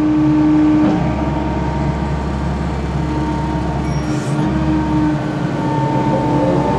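Caterpillar M315C wheeled excavator running: diesel engine with steady whining tones over it that shift in pitch a few times as the machine works.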